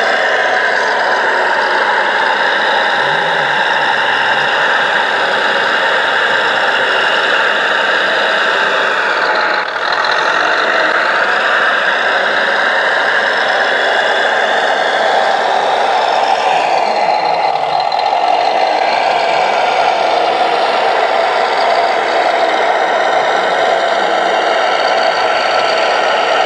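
Hydraulic RC scale model of a Volvo L250G wheel loader working: a steady whir of its electric motor and hydraulic pump mixed with the diesel engine of its sound module. The pitch dips and rises again about two-thirds of the way through.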